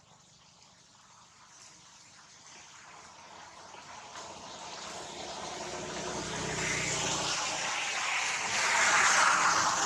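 A passing vehicle: its noise swells slowly from faint to a peak near the end, then starts to fade.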